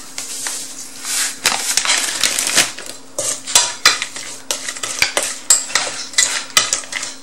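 A plastic bag rustles as MSG is poured into a stainless steel mixing bowl. From about three seconds in, shredded mango salad is tossed by hand in the bowl, with quick, irregular clicks and knocks against the metal.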